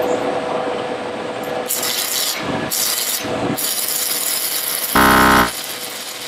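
Stick-welding arc from a 6010 electrode on a small Wetols 110/220V inverter stick welder, crackling unevenly. The welder says the machine is not really meant for 6010 and struggles to keep the arc lit. About five seconds in, a short, loud buzz with a steady pitch lasts about half a second.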